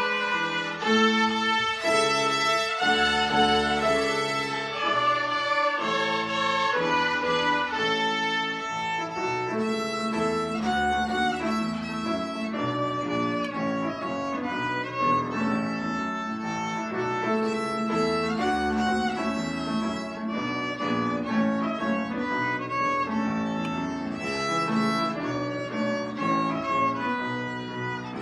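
A children's violin ensemble playing a melody together in sustained bowed notes, accompanied on a grand piano.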